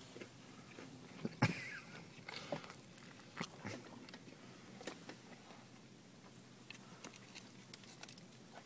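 A man chewing and biting into a stacked KFC Zinger Tower burger close to the microphone: faint, scattered wet mouth smacks and clicks, the sharpest about a second and a half in.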